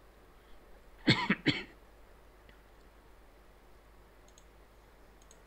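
A man coughs twice in quick succession about a second in, then a couple of faint computer mouse clicks near the end.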